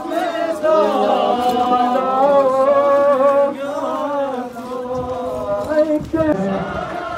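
A group of men chanting together in unison, a Muharram mourning chant of an Ashura procession, with long held notes that waver up and down.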